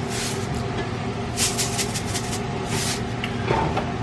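Salt shaken into a cooking pot in three short hissing bursts, over a steady low kitchen hum.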